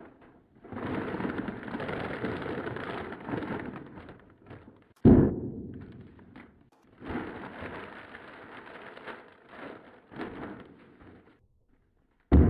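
Homemade foley firework sound effects: a few seconds of crackling and sizzling, a single sharp bang about five seconds in, more crackling with scattered pops, and another sudden bang near the end.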